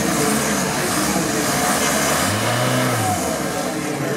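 Off-road trial 4x4 special's engine revving as it crawls up over rocks, the pitch rising and falling once about two seconds in.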